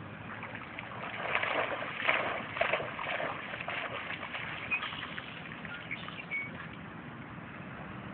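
English springer spaniel bounding out of a lake through shallow flooded grass, its legs splashing irregularly from about a second in until about five seconds in.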